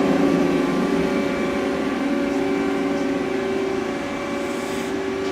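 Haas ST20 CNC turning center running powered up, a steady machine hum with several held tones.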